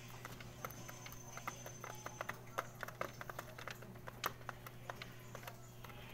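Pigeons pecking pellet feed from a feeder trough: an irregular patter of sharp clicks, several a second, as beaks strike the pellets and the trough, over a steady low hum.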